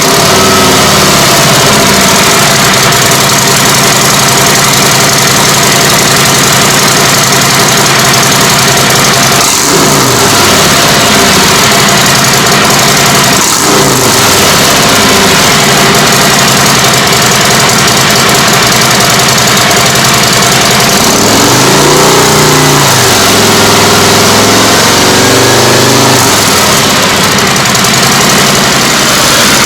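Harley-Davidson Milwaukee-Eight 107 V-twin idling loudly just after start-up. It takes two short throttle blips about ten and fourteen seconds in, then a longer rev a little after twenty seconds before settling back to idle.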